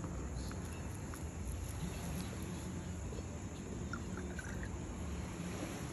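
Steady outdoor background rush with a few faint clicks and taps.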